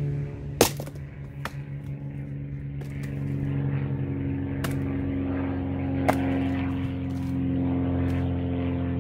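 One sharp chop of a Hults Bruk axe splitting a log on a chopping block about half a second in, followed by a few lighter wooden knocks as the split pieces and new logs are handled and set on the block. A steady motor drone runs underneath.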